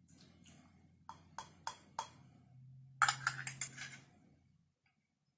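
Metal teaspoon clinking against a china teacup while stirring tea, sharp ticks about three a second, then a louder quick run of china clinks about three seconds in.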